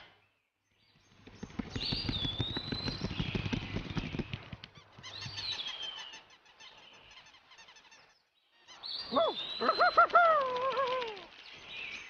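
Cartoon birds chirping and squabbling: a dense fluttering rustle with high gliding chirps over it in the first half, then a loud warbling squawk that bends up and down about three quarters of the way through.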